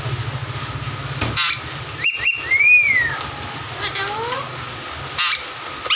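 Alexandrine parakeet calling from its cage: a few short harsh squawks about two seconds in, then a whistled note that rises and falls, and another squawk and whistled call near the end.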